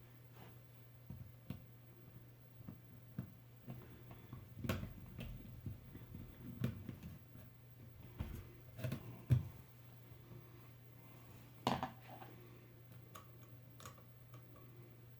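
Scattered light clicks, taps and knocks of hand work on a newly fitted electrical outlet: the plastic cover plate and its screws being put on with a screwdriver. The loudest knocks come about nine and twelve seconds in, over a low steady hum.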